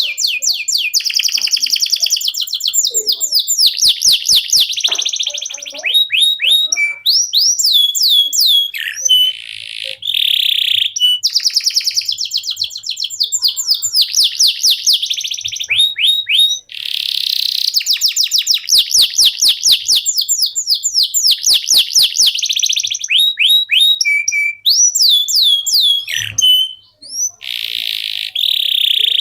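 Domestic canary singing a long, loud song of fast trills and rolls, with a few brief pauses.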